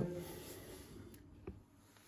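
Quiet room with two faint, short clicks of small handling noise about a second in.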